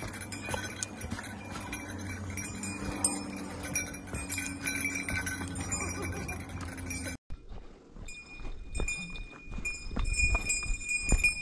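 Hikers' footsteps on a dirt mountain trail with log steps, with rustling as they walk. The sound drops out briefly about seven seconds in, then the footsteps come back as sharper, louder steps.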